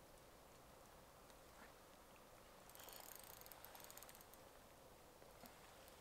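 Faint rapid clicking of a fishing reel being cranked, a run of about a second and a half near the middle; otherwise near quiet.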